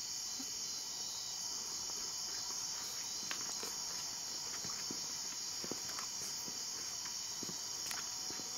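Steady high-pitched chorus of night insects such as crickets, with faint scattered footsteps and taps on stone.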